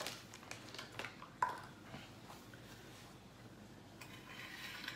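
A few light knocks and clicks of a loaf soap mold in its wire frame and small containers being handled on a granite countertop, the sharpest knock about a second and a half in, then soft rustling near the end.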